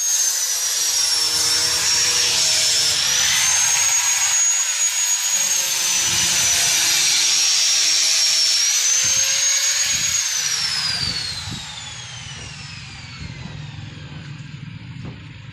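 Electric power tool running at high speed with a high whine over a hiss of cutting wood, its pitch dipping and recovering as it works. About ten seconds in it is switched off and the whine falls away as the motor spins down.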